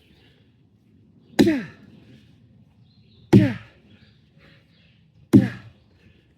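An axe chopping wood: three strikes about two seconds apart. Each strike has a short ring that falls in pitch.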